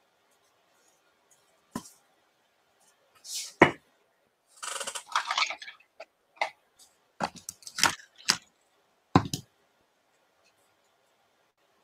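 Ribbon being handled and pulled into a bow, with a drawn-out rustling swish about five seconds in. Several sharp clicks and light knocks of things handled on the craft mat sound in the second half.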